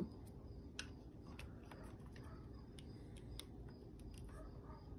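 Faint, irregular small clicks of a component analyser's test clips and a metal tool being handled and clipped onto an RF transistor's leads.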